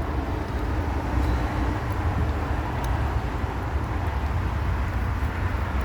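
Steady low rumble of outdoor background noise, with road traffic in it.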